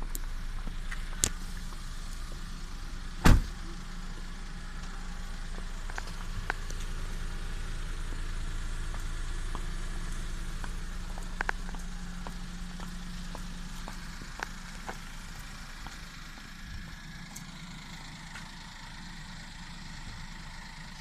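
Citroën C4 Cactus 1.2 PureTech three-cylinder petrol engine idling steadily in the first minute after a cold start at −3 °C. A single sharp thump comes about three seconds in.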